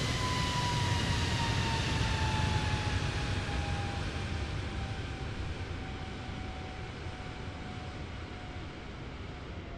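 Jet airliner at takeoff power passing and climbing away: a heavy engine rumble, loudest about two to three seconds in and then fading, with a whine that slowly falls in pitch as the aircraft recedes.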